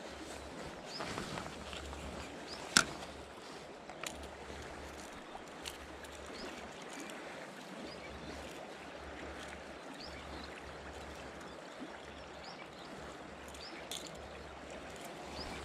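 River water flowing steadily, with one sharp click about three seconds in and a few fainter clicks after it.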